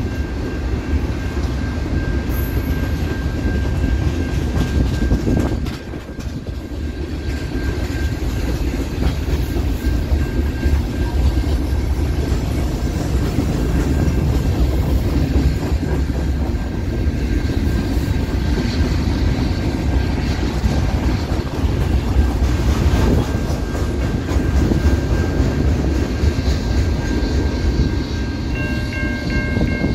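Freight cars of a CN freight train rolling past close by: a steady low rumble with wheels clacking over the rail joints and a thin high squeal running under it. Near the end a locomotive horn starts to sound as a VIA passenger train approaches.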